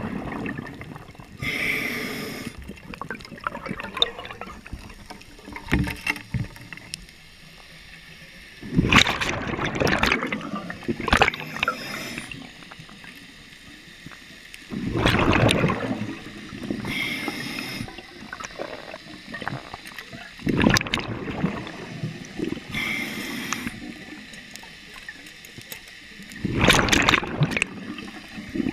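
Scuba diver breathing through a regulator underwater: a hiss on each inhale and a rush of exhaled bubbles, repeating about every six seconds. A few clicks and knocks fall between breaths.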